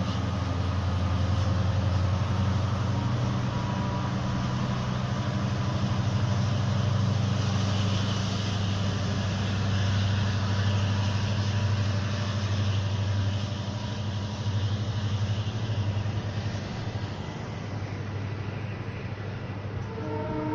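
EMD WDP-4D diesel locomotive's engine running with a steady low drone, easing slightly in the last few seconds. Its horn begins sounding right at the end.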